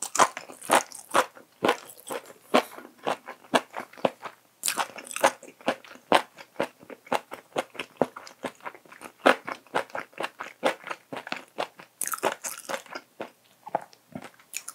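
A person chewing crunchy food close to the microphone: a steady run of crisp crunches, about three to four a second.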